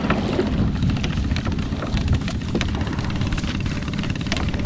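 Small fishing boat's engine running steadily, with wind buffeting the microphone and scattered light clicks.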